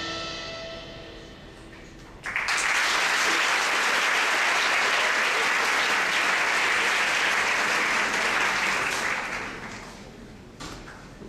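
Audience applause in a theatre, breaking out suddenly about two seconds in as the stage music fades out, holding steady and then dying away near the end.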